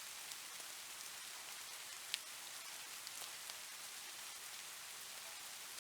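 Steady rain falling, an even hiss with scattered individual drop ticks; one sharper drip about two seconds in.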